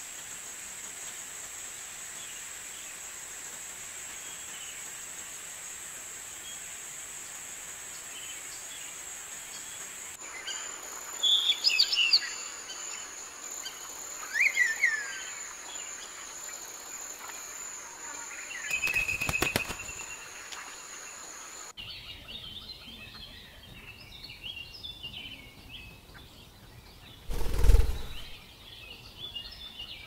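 Spliced wild-bird recordings: a steady high insect buzz under the first twenty seconds or so, with a few sharp, down-slurred bird calls about halfway through. Then a cut to many small birds chattering together, with a loud low thump near the end.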